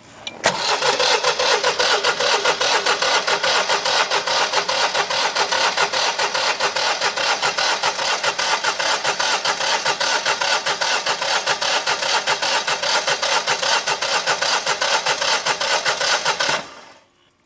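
Starter cranking the 992 cc V-twin of a Honeywell (Generac-built) 17 kW standby generator for about sixteen seconds without it catching, an even rapid beat that stops abruptly near the end. This is a failed first cold-start attempt at −24 °C, with no cold weather kit fitted.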